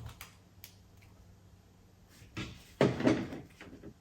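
Small plastic LEGO pieces being handled and fitted together: a few faint clicks, then a louder bout of clattering and rubbing about two and a half seconds in.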